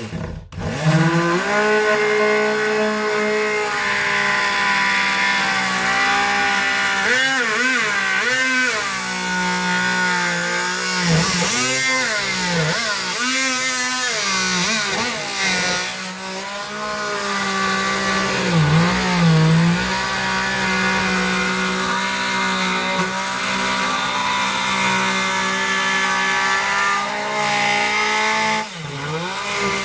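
Ridgid JobMax oscillating multi-tool with a saw blade running and cutting into 3/4-inch plywood, a steady buzzing drone whose pitch dips and recovers several times as the blade loads in the cut.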